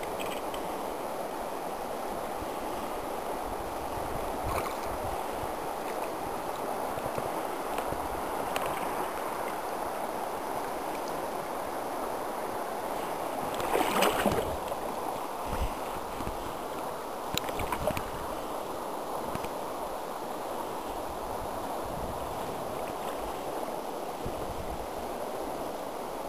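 River water rushing and lapping around a boat drifting down the current. About fourteen seconds in there is a louder splash, and a few seconds later a couple of short knocks.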